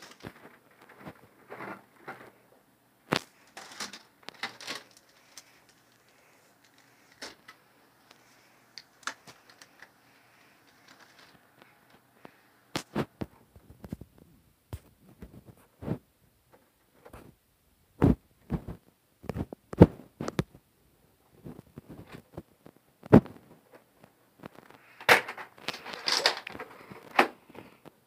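Scattered sharp knocks and clicks with some rustling, the sound of a handheld phone and things around it being handled and moved about, with a longer, louder stretch of rustling near the end.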